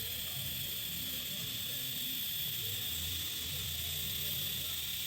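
TIG welding arc burning steadily on a steel pipe joint: an even, steady hiss with a faint hum.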